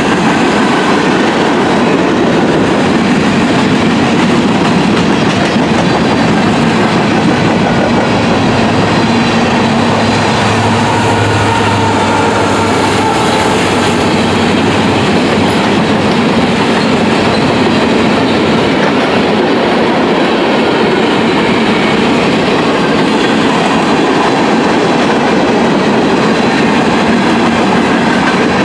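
Freight train cars rolling past, their wheels clicking steadily over the rail joints. A thin, high wheel squeal sounds briefly around the middle.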